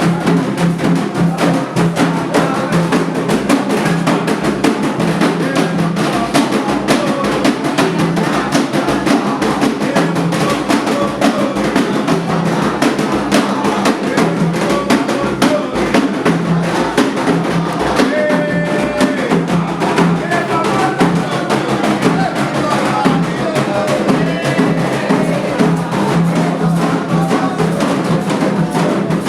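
Candomblé ritual drumming on atabaque hand drums: a dense, steady, fast beat of drum strokes that continues without a break.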